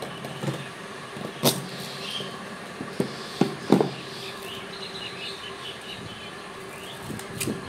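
Black sugarcane being peeled by hand and bitten: the rind gives several sharp cracks and snaps as strips are torn off and a piece is bitten.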